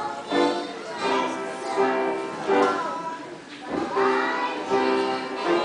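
A group of young children singing a song together in unison, phrases of held notes one after another.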